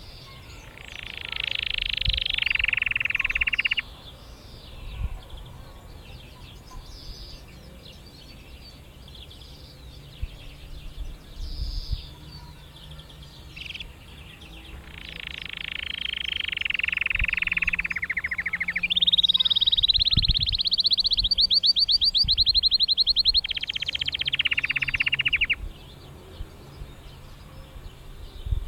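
Canary singing: a short burst of song about a second in, then after a pause a long phrase of about ten seconds that ends in fast trills.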